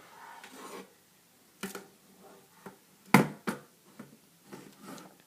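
Handling of a plastic K'nex toy gun: a few sharp clicks and knocks, the loudest a little over three seconds in, with rustling between them.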